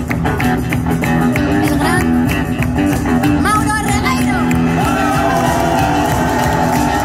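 Rockabilly band playing live: upright double bass, drums, and electric and acoustic guitars, with a woman singing.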